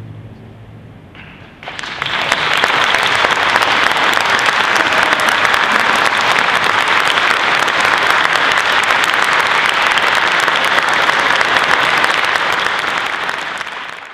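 Audience applause that breaks out about a second and a half in, after a brief hush, and holds as dense, steady clapping before fading out at the end.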